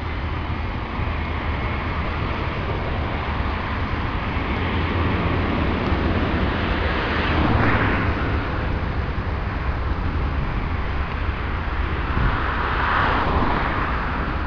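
Airbus A318 twin jet engines running at low power as the airliner rolls and turns on the runway: a steady rush over a low rumble that swells twice, about halfway through and near the end.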